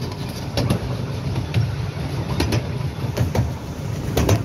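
Miniature railway train running along the track, heard from one of its coaches: a steady low rumble with irregular sharp clicks of the wheels over the rails.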